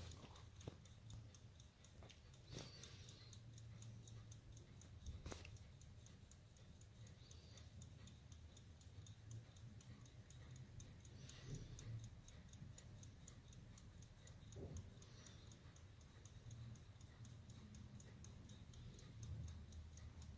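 Antique carriage alarm clock ticking quietly, a quick, even beat of its escapement, with a few faint knocks here and there.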